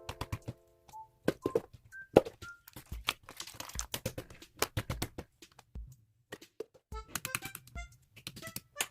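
Mobile phone buttons clicking under quick presses, with short electronic beeps between them.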